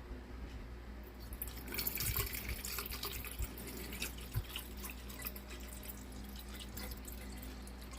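Water running into a glass snow globe as it is refilled: a trickling, splashing sound with fine drips that sets in about a second and a half in and is loudest soon after.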